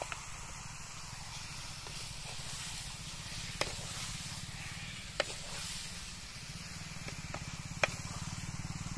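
Steady low rumble and hiss in the open air, with three sharp clicks spread through the middle and latter part.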